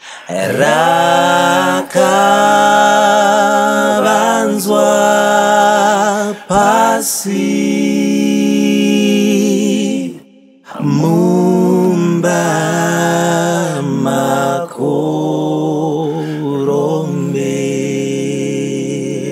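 Three men singing a Shona Catholic hymn to the Holy Sacrament a cappella, in close harmony. They hold long chords in phrases broken by a few short pauses for breath.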